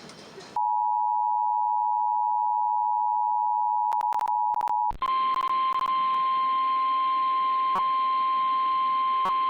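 Emergency Alert System attention signal: a steady two-tone chord sounds for about four seconds, with a few sharp clicks near its end. It breaks off into a single steady tone, the NOAA Weather Radio alert tone, heard over a hiss of radio static.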